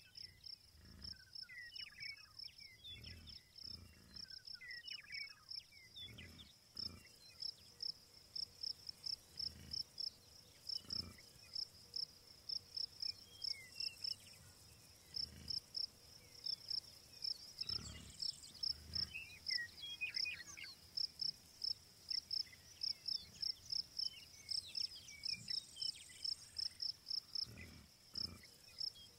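Cricket-like chirping at a steady rate of about three chirps a second, with occasional bird chirps and a few soft low thumps.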